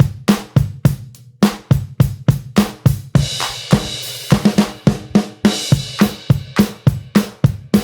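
Background music with a fast, steady drum beat and crashing cymbals.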